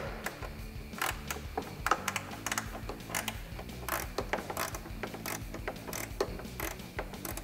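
An 8mm wrench working loose a small fog-light mounting bolt: a string of uneven, sharp metallic clicks, about one or two a second.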